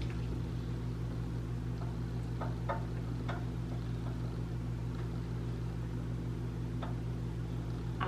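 A steady low hum, even and unchanging, with a few faint light clicks.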